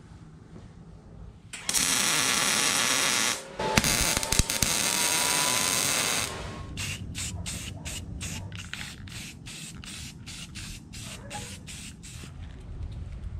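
Arc welding a steel tube rack: two long, steady runs of crackling hiss from the welding arc, with a short break between them, then several seconds of short bursts at about four a second.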